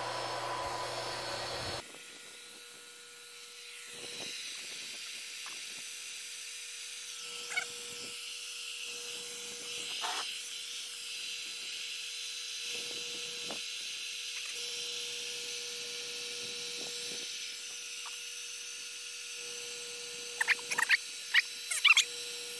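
Handheld electric air pump running steadily as it inflates a vinyl pool float: a high whine over a rushing hiss, with the footage sped up. Near the end, a quick run of short, high squeaks.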